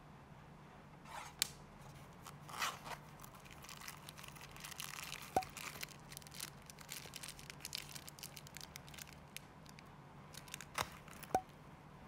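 Hands handling small packaging: rustling and crinkling of a clear plastic zip-lock bag and a neoprene pouch, with scattered clicks and a few sharp ticks, two of them clear and short about five seconds in and near the end.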